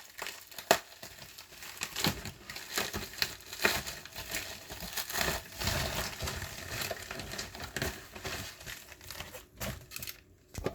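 Packaging crinkling and tearing as a sealed package is opened by hand: a dense, irregular run of rustles and crackles.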